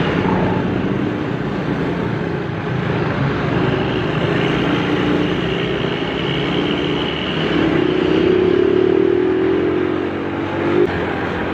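Road traffic with motorcycles and larger vehicles passing. From about halfway through, a held pitched tone grows louder and then cuts off suddenly near the end.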